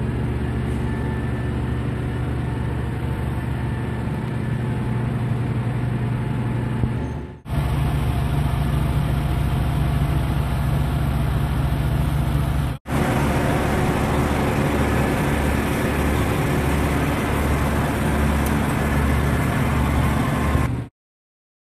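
Heavy diesel machinery running steadily, a loud low engine drone from the tree crew's equipment; the sound drops out briefly twice and cuts off near the end.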